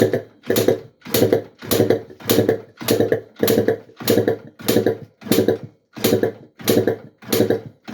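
Yamaha Blaster's freshly rebuilt two-stroke single-cylinder engine being turned over with the throttle wide open for a compression test. It gives a steady run of even pulses, a little under two a second, one for each compression stroke.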